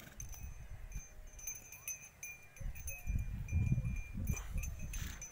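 Wind rumbling on the microphone, strongest a little past the middle, with faint high chirping tones coming and going above it.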